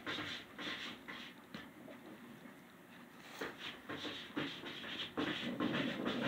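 Handling noise: small dropper bottles picked up, moved and set down on a wooden tabletop, with irregular light taps and scraping.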